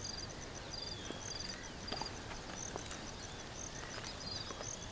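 Wild outdoor ambience: a steady, rhythmic high chirping of insects, with a few short whistling bird calls over it.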